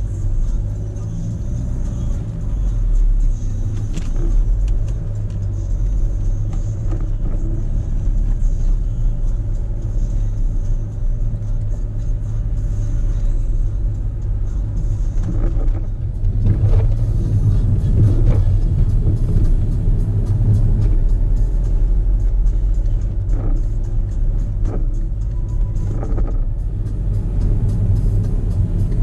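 Car driving through town, heard from inside the cabin: a steady low rumble of engine and road noise, with a few knocks from bumps in the road.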